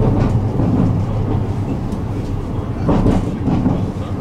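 Tram running along the line, heard from inside the car: a steady low rumble of motors and wheels on rail, with two brief louder knocks from the running gear, one at the start and one about three seconds in.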